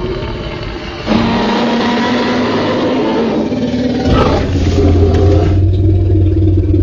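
Movie-style Tyrannosaurus rex roar and growl sound effect, low and continuous, with a new roar starting abruptly about a second in and another swelling up about four seconds in.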